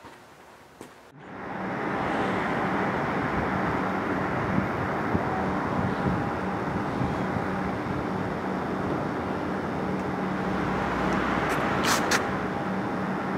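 Steady road-traffic noise from a city street, coming in about a second in, with two short clicks near the end.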